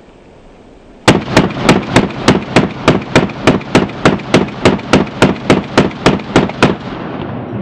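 AR-15-style rifle bump-fired from a slide-fire stock: a string of about twenty evenly spaced shots, about three or four a second, starting about a second in. A rumbling tail follows the last shot near the end.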